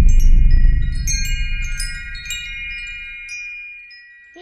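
Wind chimes tinkling: a scatter of high metallic strikes whose tones ring on and slowly fade. A low rumble underneath dies away over the first three seconds or so.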